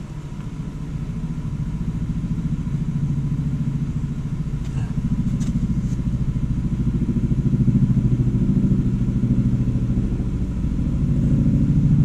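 A motor engine running with a low, evenly pulsing rumble that grows louder over the first several seconds and then holds steady.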